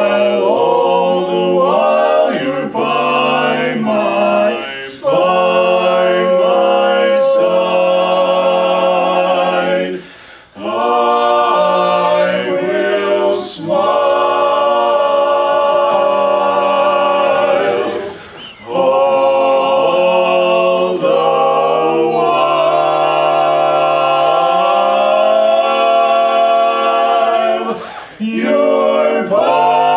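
Male vocal quartet singing a cappella with long held notes, the voices dropping out briefly about 10, 18 and 28 seconds in.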